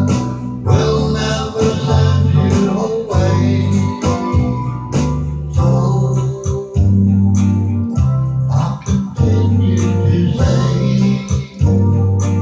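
Music with a steady beat and a heavy bass line that steps from note to note.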